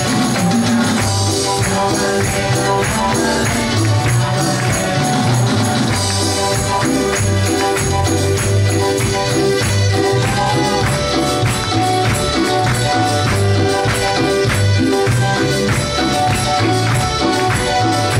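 Live church worship band playing a Pentecostal coro: electric bass guitar and timbales, with a tambourine jingling along and a steady beat.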